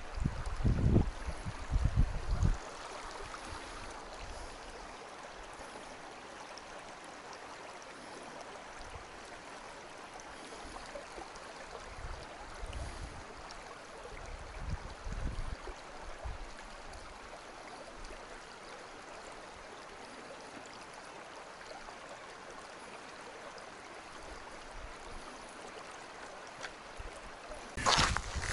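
Shallow rocky stream running steadily over stones. A few low bumps break in during the first couple of seconds and again around the middle, and a louder burst of rustling and bumping begins near the end.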